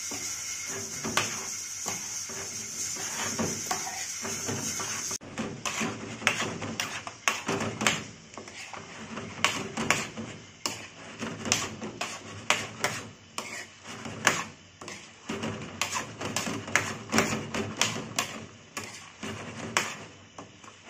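A metal spatula scraping and clinking against a karahi pan as mutton in thick gravy is stirred: a run of short, uneven knocks and scrapes. For the first five seconds or so a steady frying hiss sits under the knocks, then it stops abruptly.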